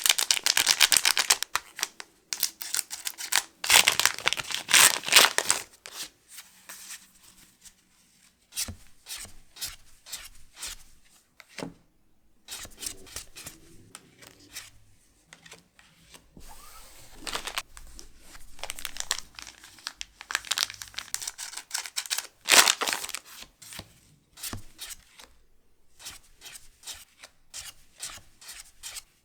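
Foil Pokémon booster pack wrappers being torn open and crinkled by hand, in several bursts of tearing and rustling with quieter handling between.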